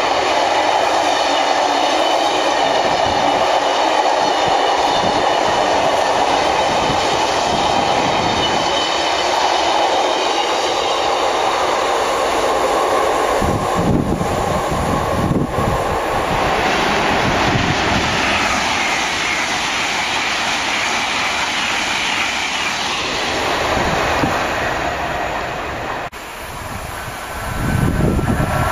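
Freight train of open box wagons rolling past close by, with steady wheel-on-rail rumble, clatter and a steady high ringing. About halfway through the tail clears and the sound fades away. Near the end an approaching electric multiple unit grows louder.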